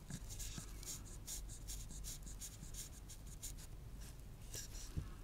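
Sharp knife slicing excess goatskin leather away along the edge of a wooden box, a quick irregular series of short scratching cuts.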